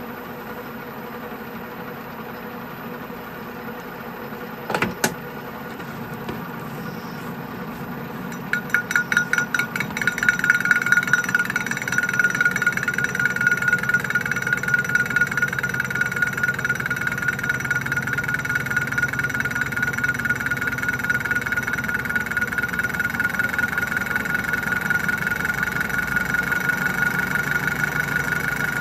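Colchester Student lathe running with a large metal disc spinning in the chuck. A brief sharp knock comes about five seconds in; from about eight seconds the cutting tool bites into the face and a loud high squeal sets in, pulsing at first and then holding steady.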